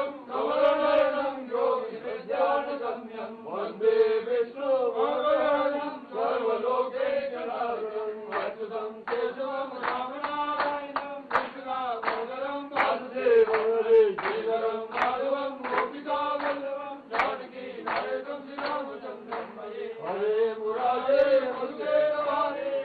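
Group of men chanting Hindu mantras together in a continuous recitation during the aarti.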